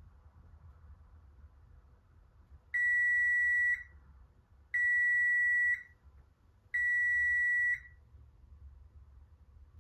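Frigidaire electronic oven control's timer sounding three long beeps, each about a second long at one steady high pitch, two seconds apart: the countdown timer has run out.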